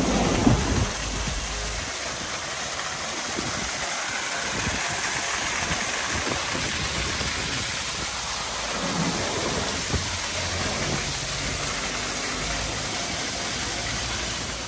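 A small freshwater waterfall pouring and splashing steadily over a person standing under it, close to the microphone.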